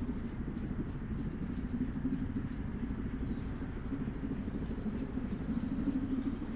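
Distant Pacific steam locomotive approaching with its train, heard as a steady low rumble that grows a little louder near the end.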